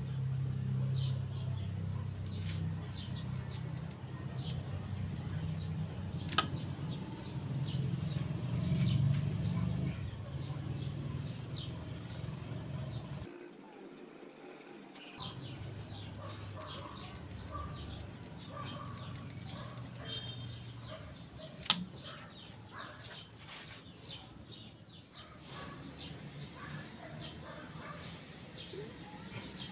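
Two sharp snaps from the miniature popsicle-stick compound bow shooting skewer arrows at the target, one about six seconds in and one about twenty-two seconds in. Under them are outdoor ambience with birds chirping and a steady low rumble.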